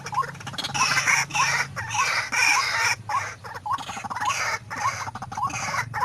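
White-breasted waterhens calling: loud harsh croaking calls over a steady series of short rising notes repeated about one and a half times a second.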